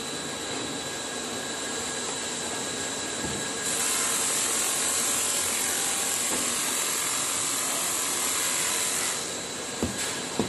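Steady whirring and hissing from running machinery, with a louder, airier hiss for about five seconds in the middle and two short clicks near the end.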